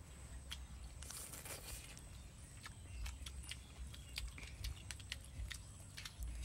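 Eating sounds: chewing, and scattered light clicks of a bamboo stick scooping omelet out of a bamboo tube, over a low rumble.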